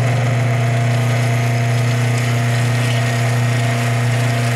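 Electric Procon-type pump motor and small cooling fan of a homemade TIG welder water cooler running steadily with a low, even hum and a rushing fan noise, pumping water through the torch loop.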